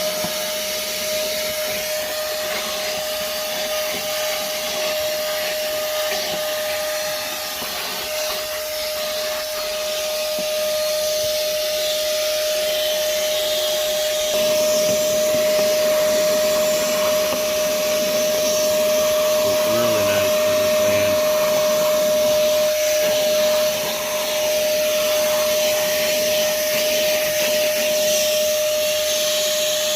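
Moosoo 18 V cordless shop vacuum running continuously, a steady motor whine over the rush of air, getting louder about halfway through as the nozzle works over surfaces.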